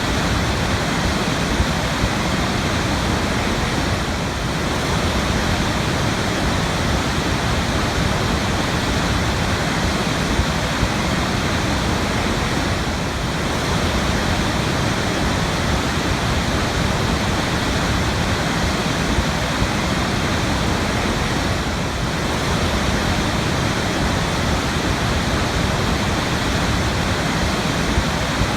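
Waterfall: falling water crashing in a steady, dense rush that carries much deep rumble.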